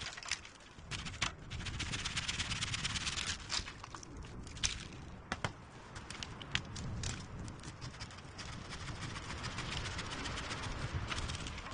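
Dry dead wood being gathered on the forest floor: sharp cracks of twigs and branches snapping, with spells of rustling and scraping as a long dead pole is dragged through dry debris.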